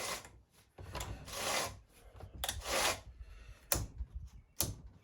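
Hand work on a chainsaw on a workbench: several short rasping, rubbing scrapes of parts being handled, then two sharp clicks near the end.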